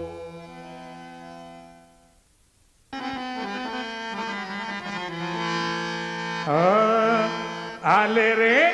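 Held harmonium notes die away and stop about two seconds in. After a brief silence, new harmonium chords start about three seconds in, and a wavering melody line with upward slides enters over them near the end.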